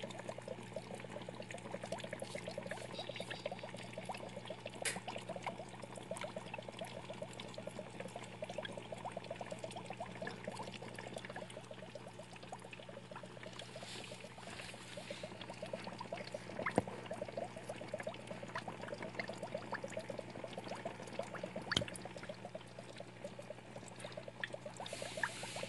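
Turtle-tank water trickling and bubbling steadily over a low, even hum, with a few faint clicks.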